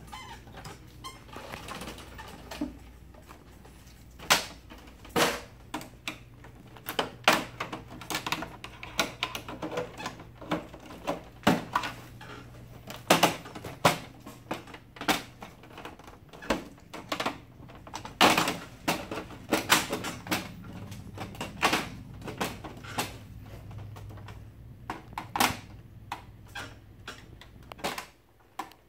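Irregular plastic clicks and snaps, some sharp and loud, as a flathead screwdriver pries an HP laser printer's plastic side cover loose from its interlocking locking tabs.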